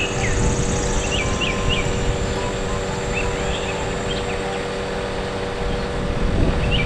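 Truck-mounted aerial work platform running, a steady mechanical hum over a low rumble, as the boom holds and shifts the basket. Small birds chirp briefly several times over it.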